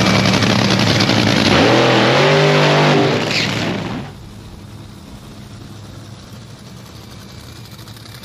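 A race car engine running loud, its revs sweeping up and back down about two seconds in, then dropping away to a much quieter background about four seconds in.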